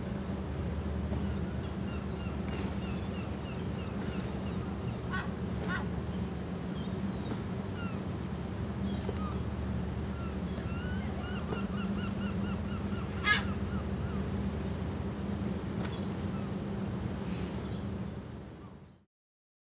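Steady low hum of a berthed cruise ship's machinery, with birds calling over it: runs of short high notes and a few sharp calls, the loudest about thirteen seconds in. The sound fades out near the end.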